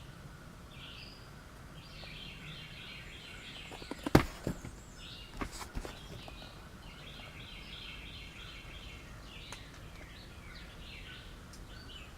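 Sharp clicks and taps of metal Swiss Army knives being handled: the loudest about four seconds in, then a few more a second and a half later. Faint bird chirping runs underneath.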